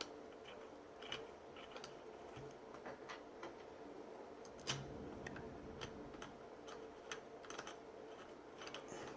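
Faint, irregular small clicks and taps of hand work on a reciprocating saw being reassembled, with one louder click about halfway through.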